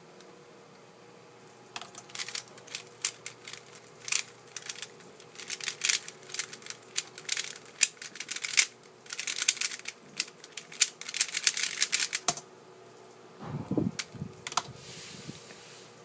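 A Dayan GuHong 3x3 speedcube being turned at full speed for about ten seconds: rapid bursts of plastic clicking and clacking as the layers snap round, with short pauses between bursts. The turning stops with a sharp tap, followed by a dull knock as the cube is set down.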